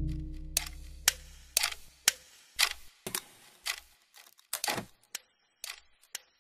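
A series of sharp mechanical clicks, a dozen or so, about half a second apart at first and then less evenly spaced, while a low ringing drone dies away.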